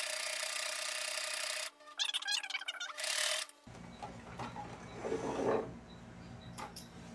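Electric domestic sewing machine stitching a seam in two runs, stopping briefly about a second and a half in, then running again until about halfway through. After it stops there is quieter rustling of fabric and thread with a few light clicks.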